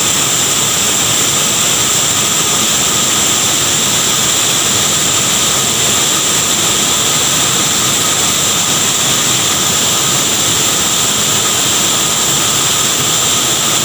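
Large waterfall: a loud, steady rush of falling water that stays even throughout.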